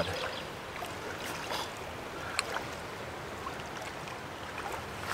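Steady rush of a flowing creek, with a few faint clicks.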